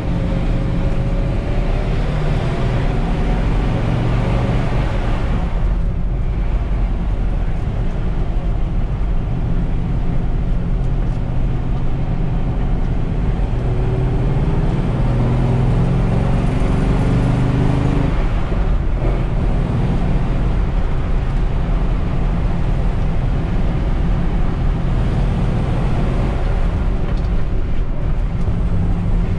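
1950 Ford F2 pickup's flathead V8 pulling on the road, heard from inside the cab along with road noise. The engine note climbs as the truck accelerates through the middle and dips briefly twice.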